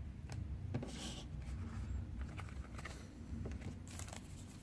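Faint handling of trading cards: soft clicks and short swishes as cards slide against each other, over a low steady room hum.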